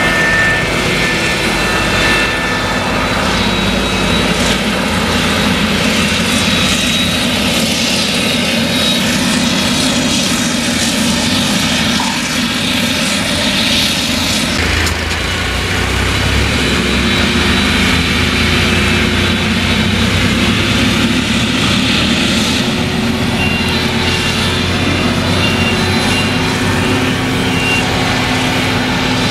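Claas Jaguar 970 forage harvester chopping maize, its MAN V8 engine running steadily under load, with a tractor hauling the silage trailer alongside. The deep engine note grows stronger about halfway through.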